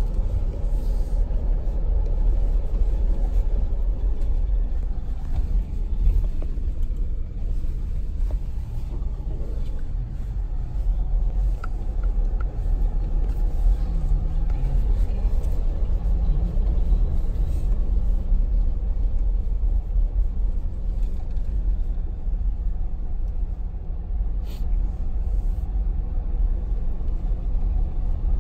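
Mercedes G550 V8 and its tyres on a packed-snow trail, a steady low rumble heard from inside the cabin while driving slowly.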